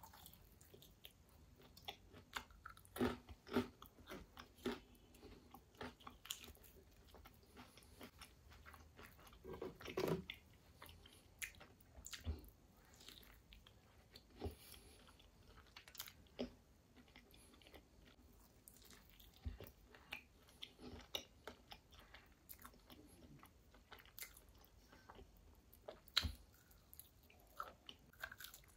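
Person biting and chewing crispy KFC fried chicken: scattered crisp crunches and chewing sounds, with a few louder bites here and there.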